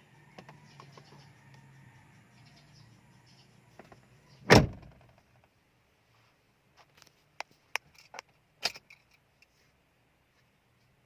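A Chevrolet Spark's car door shuts with a single loud thump, followed a couple of seconds later by a scatter of light, sharp clicks.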